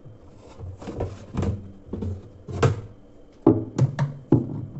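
A quick, irregular series of knocks and clunks, some with a short ringing tail, from parts of a top-loading washing machine being handled and fitted around the agitator shaft.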